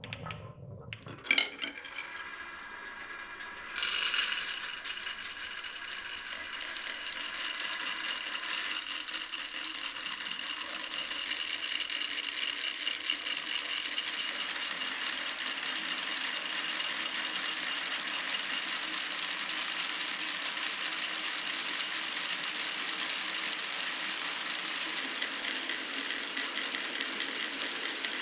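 Marbles rolling and clattering along a marble run track: a single sharp click just over a second in, then from about four seconds in a dense, steady rattle of many small clicks with a light ringing.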